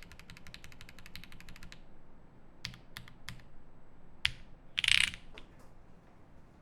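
Fast typing on a 7V mechanical keyboard with lubed C3 Banana Split linear switches, GMK keycaps and a polycarbonate plate, a quick run of keystrokes that stops about two seconds in. After that come a few single keystrokes and a louder clatter about five seconds in.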